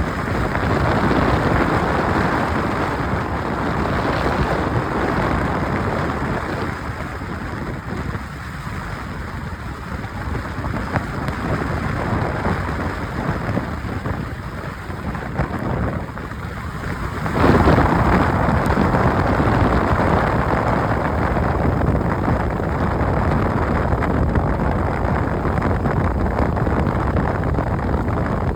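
Heavy rain pouring steadily, as an even hiss that eases a little in the middle and grows suddenly louder about seventeen seconds in.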